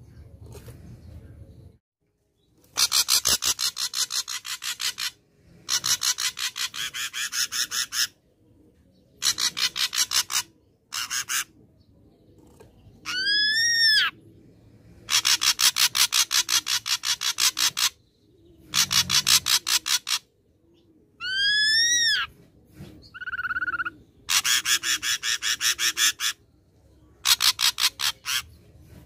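Ashy drongo singing: a run of harsh rasping rattles, each one a quick series of about five clicks a second lasting one to three seconds, broken by a few clear arched whistles that rise and fall and one short flat whistle.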